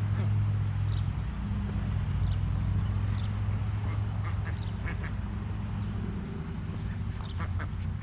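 Short, high animal calls, a few in the first half and more in clusters around the middle and near the end, over a steady low hum.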